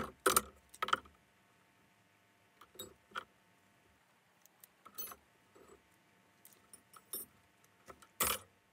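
A hammer striking a steel block twice, then light metallic clinks and taps as brass scrap and hand tools are handled and set down on a steel workbench, with a louder clatter near the end.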